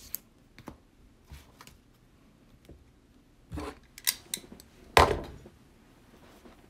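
Handling noises on a table: scattered small clicks and rustles, a quick run of sharp clicks about four seconds in, and a louder knock about five seconds in.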